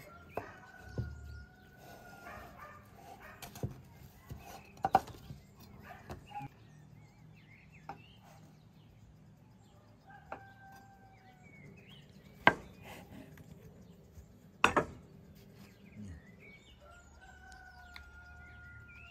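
A rooster crowing three times, with sharp knocks of a kitchen knife on a wooden cutting board as mushrooms are sliced; the loudest knocks come about two-thirds of the way in.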